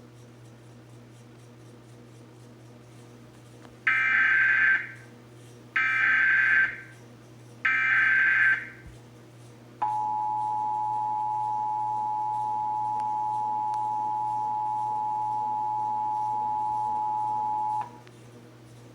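Emergency Alert System SAME header: three one-second bursts of digital data tones about two seconds apart, followed by the EAS two-tone attention signal (853 and 960 Hz together), held steady for about eight seconds and then cut off sharply.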